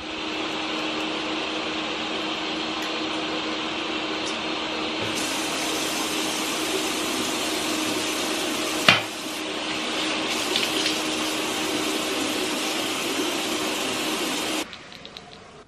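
Water running steadily from a bathroom sink tap, with one sharp knock about nine seconds in; the running water stops abruptly near the end.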